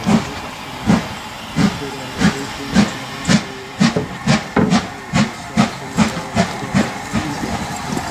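LMS Stanier Black 5 steam locomotive working slowly under steam, its exhaust beating about twice a second over a steady hiss, the beats quickening a little as it comes on.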